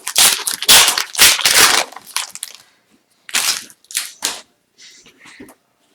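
Crinkling and rustling from a trading card pack and its cards being handled. It comes in several noisy bursts, densest in the first two seconds, then two short ones and a faint one.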